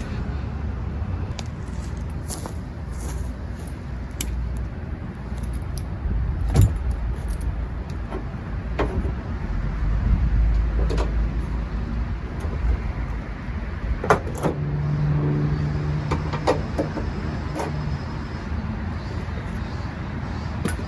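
Scattered metallic clicks and light rattles of hands working the door-handle rod clip inside a pickup's door, over a steady low rumble. A low steady hum comes in about two thirds of the way through and stops about three seconds later.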